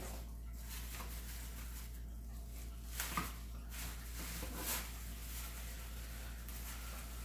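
Faint scraping and rustling of cardboard and tape packaging being cut open with a knife, a few short strokes, the clearest about three seconds in, over a steady low electrical hum.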